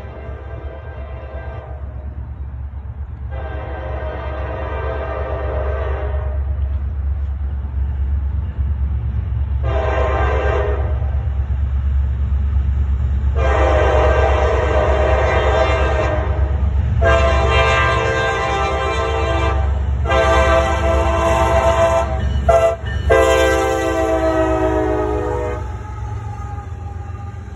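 Norfolk Southern diesel locomotive air horn sounding the grade-crossing pattern over the low rumble of the approaching locomotives. It gives two long blasts, a short one, then a long one held with brief breaks, while the rumble grows louder. Near the end the horn stops and the double-stack container cars roll past as the rumble drops.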